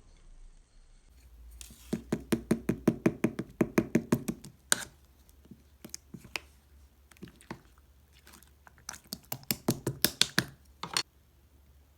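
Clear slime being pressed and poked by hand, giving quick runs of sticky clicks and pops about six a second. One run comes about two to five seconds in, another around nine to eleven seconds, with scattered single pops between.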